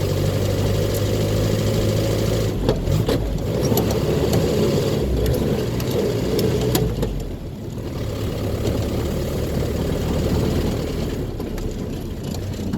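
Land Rover Series II's 2.25-litre four-cylinder petrol engine and drivetrain running under way, heard from inside the cab. A few sharp knocks and rattles come about three seconds in, and the engine note drops a little past the middle.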